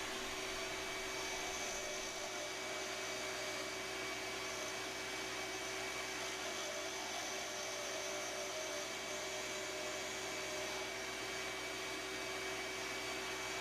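Harbor Freight wood lathe running steadily, a motor hum with a thin high whine under an even hiss, as a turning tool shapes a pen blank.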